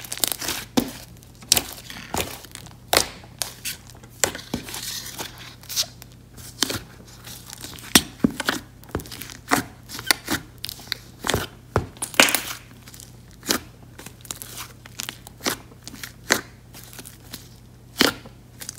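Glossy pink clay slime being squeezed, folded and poked by hand, giving off sharp, irregular clicks and pops about once or twice a second: a clicky slime.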